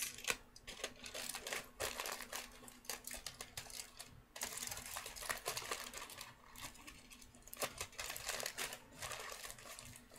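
Aluminium foil crinkling as it is squeezed and pressed into shape by hand, in quick irregular crackles with a short break about four seconds in.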